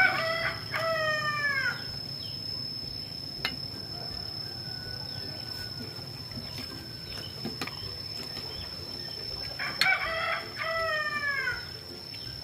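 Rooster crowing twice, about ten seconds apart, each crow a falling call of nearly two seconds.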